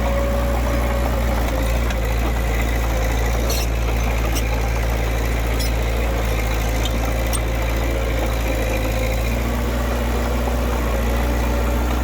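Diesel engine of heavy earthmoving machinery running steadily, a deep hum with a steady whine over it and a few faint clicks.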